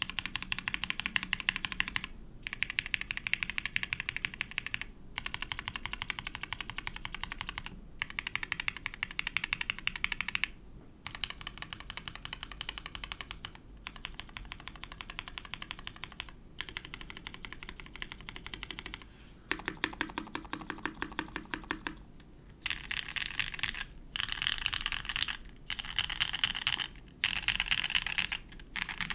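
Fast typing on a Mode Sonnet custom mechanical keyboard with lubed Cherry Nixie linear switches, an FR4 plate and GMK Honor keycaps: runs of rapid keystrokes a few seconds long, broken by short pauses.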